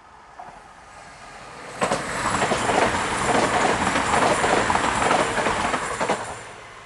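Class 220 Voyager diesel-electric multiple unit passing at speed. It builds as it approaches, then about two seconds in it turns suddenly into a loud rush of wheels on rail as the cars go by for about four seconds, and it drops away quickly near the end.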